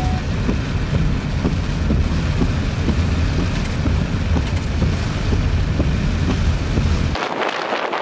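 Strong storm wind buffeting the microphone: a steady low rumble with faint scattered ticks. About seven seconds in it cuts off abruptly and a higher, even hiss of rain and wet road takes over.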